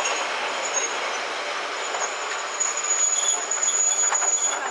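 Harz narrow-gauge steam train's carriage rolling slowly along a station platform, its wheels giving a thin, steady high squeal that grows louder about halfway through, with a few clicks from the rails near the end.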